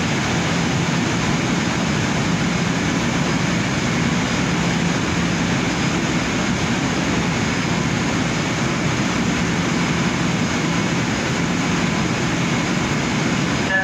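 Even, steady roar on an underground station platform as a Long Island Rail Road M7 electric train pulls away into the tunnel, with a low steady hum and faint steady whines mixed in.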